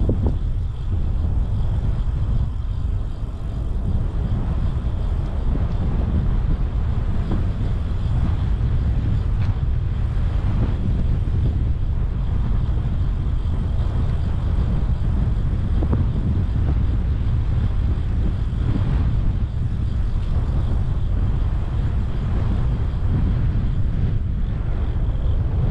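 Steady low wind rumble on the microphone of a bicycle-mounted action camera while riding, mixed with the hum of the tyres rolling on asphalt.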